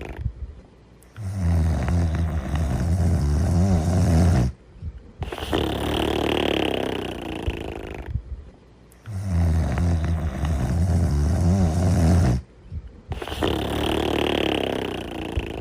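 Snoring in slow, repeating cycles: a low, rattling snore lasting about three seconds, then a higher, breathier sound of about the same length. The pair comes round twice, with short pauses between breaths.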